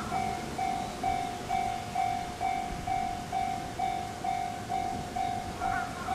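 Japanese railroad crossing's electronic warning bell ringing steadily, about two strokes a second, over a low rumble.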